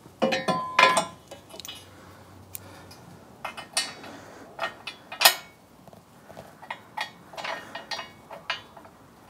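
Irregular metallic clinks and taps of bolts and washers being set by hand into a steel battery tray, a few ringing briefly, with the most in the first second.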